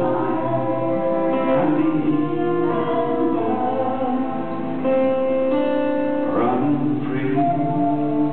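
Live acoustic instrumental: whistle and fiddle play the melody in held notes over a strummed acoustic guitar.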